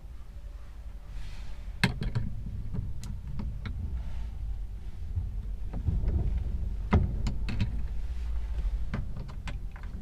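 Scattered clicks and knocks of hands and tools working at a car's interior door trim panel to remove it, over a steady low rumble.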